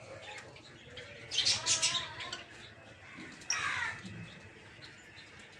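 Peach-faced lovebirds chirping: a burst of shrill chattering about a second and a half in, then a single sharp call a couple of seconds later.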